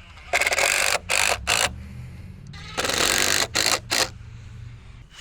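Cordless impact driver running in short rattling bursts, twice in a row: one long pull of the trigger followed by two quick ones, the pattern of driving a screw home to fasten a form board.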